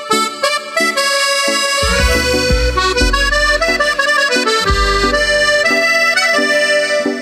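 Instrumental background music with pitched melody notes in a steady rhythm; a deep bass comes in about two seconds in.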